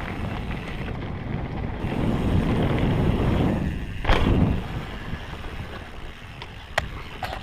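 Wind rushing over the camera on a mountain bike descending a dirt trail, with tyres rolling over dirt and gravel. There is a loud thump about four seconds in. The sound then eases as the bike rolls out onto grass, with a few sharp clicks near the end.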